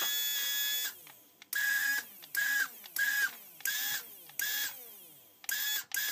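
Small brushed DC drive motor of a child's battery ride-on car, run from a replacement remote-control receiver board, whirring in about eight short bursts. Each burst rises and then falls in pitch as the motor spins up and slows, one for each press of the remote's drive control. It shows the receiver is working.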